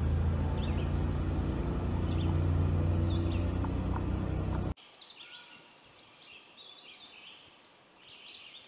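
Wild birds chirping and singing in woodland, at first under a steady low engine hum that cuts off abruptly about halfway through, then alone and clearer.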